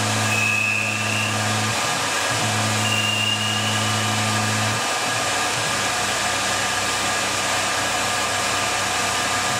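Tormach RapidTurn CNC lathe running under its program, the spindle spinning the stock while the tool turns a taper on the outside of the part. It makes a steady whirring hiss with two faint thin whistles early on, and a low hum that stops about halfway through.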